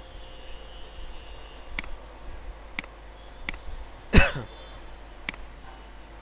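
A few sharp, separate clicks about a second apart from a computer keyboard and mouse as code is selected and deselected. About two-thirds of the way through comes one louder, short sound that drops quickly in pitch. A low hum runs underneath.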